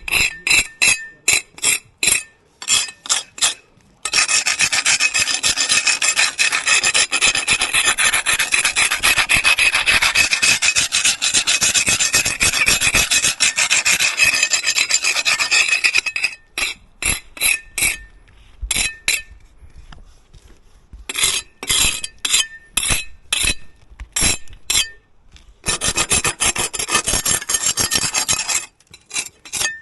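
Rasping back-and-forth strokes of a hand tool scraping a hard surface. They come in short quick runs, then as one fast continuous spell from about four seconds in to about sixteen seconds, then again in short runs with pauses.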